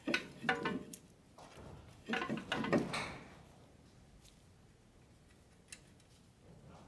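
Light metallic clicks and clinks of a brake rotor and its small retaining bolt being handled on the wheel hub as the bolt is fitted by hand: two short clusters in the first three seconds, then a single tick a little before the end.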